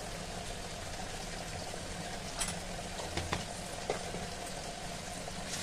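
Sliced onions and spices frying in mustard oil in a steel kadhai: a steady, even sizzle, with a few faint clicks in the middle.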